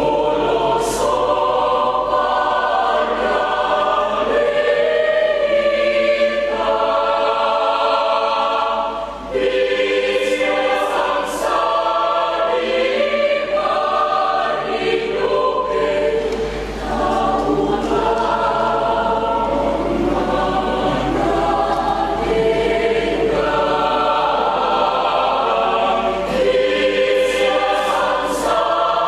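Church choir singing, phrase after phrase, with short breaths between phrases about nine seconds in and again around sixteen seconds.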